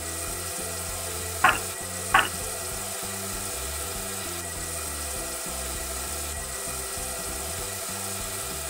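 Tap water running steadily from a faucet into a sink while hands are washed under the stream. Two brief sharp sounds come about one and a half and two seconds in.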